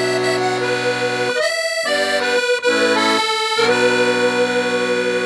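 Background music: an accordion plays a melody over held chords, with the low chord dropping out briefly twice.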